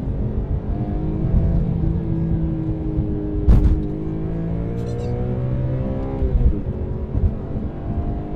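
BMW E46 M3's S54 straight-six heard from inside the cabin, pulling under acceleration with the revs slowly climbing. About halfway through there is a sharp clunk as the revs dip, an SMG gear change, and then the engine pulls again. The revs fall away near the end as the throttle is lifted.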